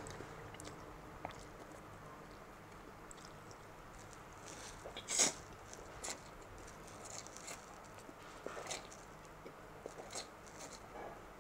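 A person eating instant noodles: chewing mouth sounds in short, scattered bursts, the loudest about five seconds in.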